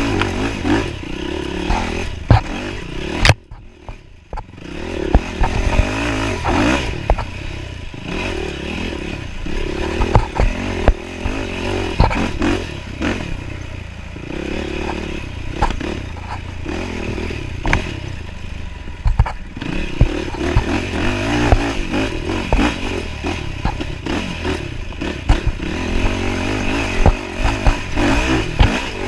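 Dirt bike engine revving up and falling back again and again as the throttle is worked hard, with knocks and clatter as the bike bounces over the rough trail. The engine drops off briefly about four seconds in, then picks up again.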